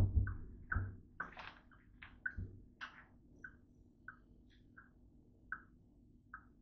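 A knock as a 2-litre plastic soda bottle is picked up off the counter, then a run of about a dozen short gulps, roughly one every half second, as someone drinks soda straight from the bottle.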